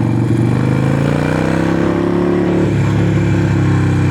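Harley-Davidson Sportster Forty-Eight's 1200 cc V-twin engine running under way, its pitch climbing slowly for about two seconds, then easing and dropping lower near the end.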